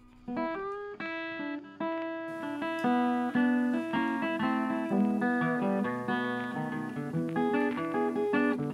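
Background music: a plucked acoustic guitar playing a run of notes, coming in just after a brief near-quiet moment.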